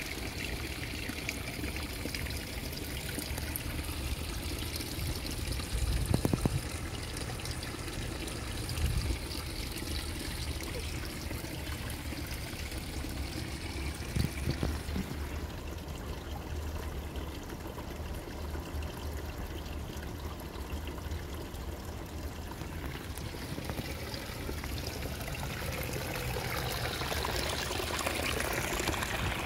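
Hot spring water trickling and pouring steadily. A dull thump about six seconds in, with smaller ones around nine and fourteen seconds.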